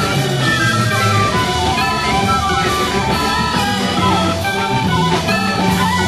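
Instrumental progressive rock from a band with bass, drum kit and keyboards, playing a dense, busy passage at a steady volume.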